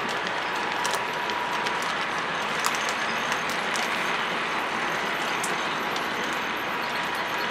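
H0 scale model train rolling along its track: a steady rolling rumble of the wheels on the rails, with scattered light clicks and a thin steady whine.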